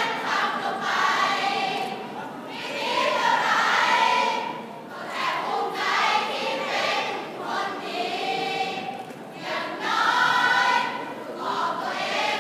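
A large group of voices singing together in unison, in phrases a few seconds long with short breaks between them.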